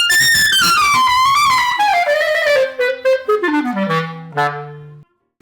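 Ayson student-model clarinet playing a melodic run that falls from the high register down to a low held note, stopping about five seconds in.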